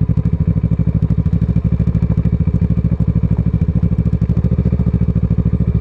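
Kawasaki ER6n's parallel-twin engine with a Scorpion aftermarket exhaust, running steadily with a fast, even exhaust beat.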